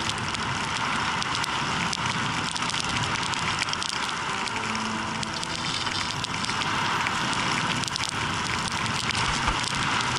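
Skis running over snow: a steady crackling hiss that holds even throughout.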